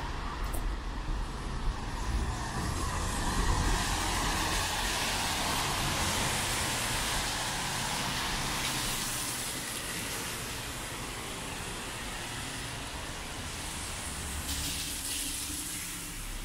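Traffic on a wet road in the rain: a passing vehicle's tyres hiss on the wet pavement, swelling over the first few seconds and fading by about ten seconds in, over a steady hiss of rain and distant traffic.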